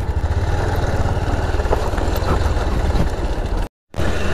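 Motorcycle engine running while riding, a steady low rumble mixed with road and wind noise. The sound cuts out for a moment about three and a half seconds in, then resumes.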